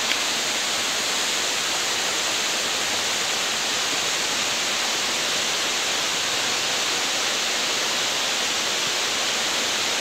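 Steady rushing of falling water from a waterfall, an even hiss with no breaks.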